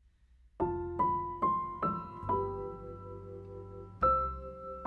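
Piano intro music: a few single notes struck about every half second, each ringing on, then a fuller chord struck about four seconds in and left to sustain.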